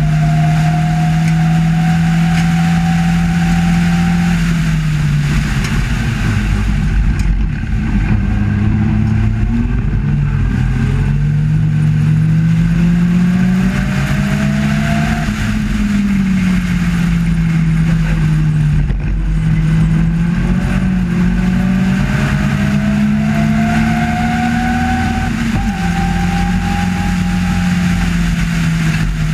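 Race car engine at racing speed, heard from the open cockpit: the note falls about four seconds in as the car slows for a corner, climbs under acceleration, dips again between about sixteen and nineteen seconds, then climbs and drops sharply about twenty-six seconds in at an upshift. Steady wind and road noise throughout.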